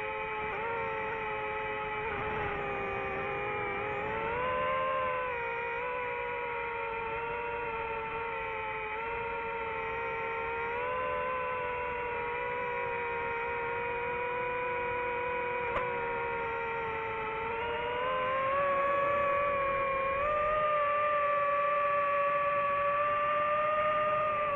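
DJI FPV drone's motors and propellers whining steadily, the pitch drifting up and down with throttle and rising about three quarters of the way through. A single sharp click about two-thirds of the way in.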